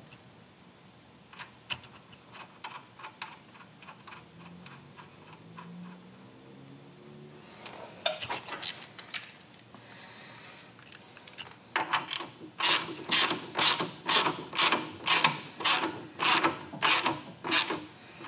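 Hand ratchet wrench clicking in quick back-and-forth strokes, about two a second, running bolts down on a motorcycle's rear brake master cylinder to hand tight. Before it come a few light metallic clicks of small parts being handled.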